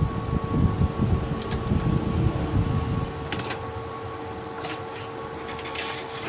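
Handling noise on a repair bench: low, irregular rumbling knocks for about the first three seconds, then a few sharp clicks, over a steady high electrical whine.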